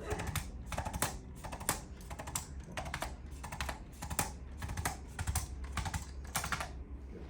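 A run of light, sharp clicks at uneven spacing, about three a second, stopping shortly before the end.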